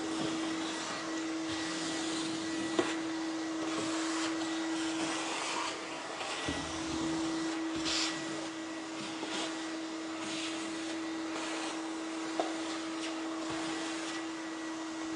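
Vacuum cleaner running while being pushed across the floor: a steady motor whine over rushing air. The whine dips briefly about six and a half seconds in, and there are two sharp clicks.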